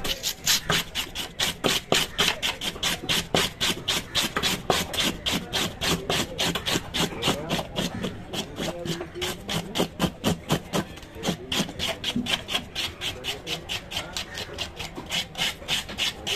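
Scales being scraped off a large wavy-lined grouper with a rasping scaler and knife. The scraping goes in quick, even strokes, about five a second, rasping against the rough scaly skin.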